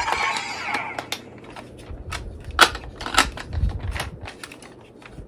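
Plastic packaging crinkling during the first second, then a run of sharp plastic clicks and taps as a toy and its wrapping are handled, the loudest about two and a half seconds in.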